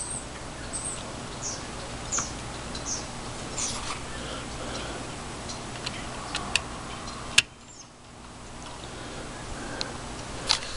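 Plastic HO scale train cars being set back onto their track by hand after a derailment: light plastic clicks and ticks with faint high squeaks in the first few seconds, over a steady hum. One sharp click comes about two-thirds of the way through, and the hum dips briefly after it.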